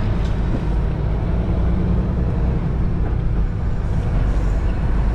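Semi-truck cab interior while driving: the tractor's diesel engine and road noise form a steady low drone.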